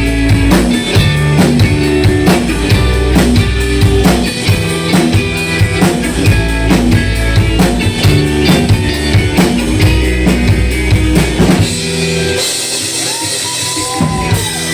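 Live rock band playing an instrumental passage on drum kit, bass and guitar, with no singing. The drums and bass stop about twelve seconds in as the song ends.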